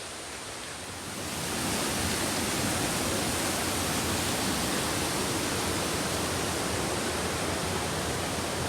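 Waterfall: a steady rush of falling water that grows louder about a second in and then holds.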